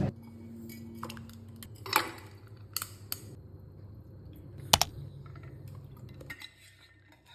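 A few light clinks of dishes and cutlery over a low steady hum, which drops away near the end.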